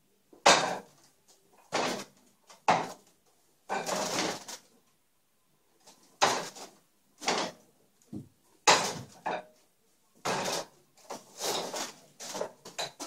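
Wing Chun wooden dummy being worked: irregular wooden knocks and clacks as forearms and hands strike its wooden arms, some single and some in quick runs of several strikes, with a kick at its leg near the end.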